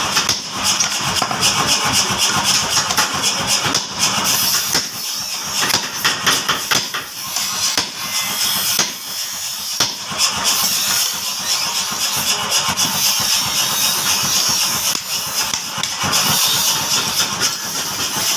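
A machine motor running steadily, with frequent sharp metal clicks and snips as hand shears trim the edge of a steel trowel blade.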